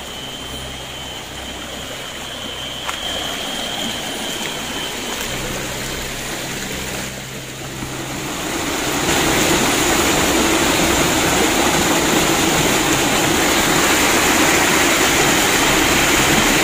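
Flowing stream water, a steady rushing hiss that grows much louder about halfway through as the water gets closer. A steady high tone is heard over it for the first few seconds.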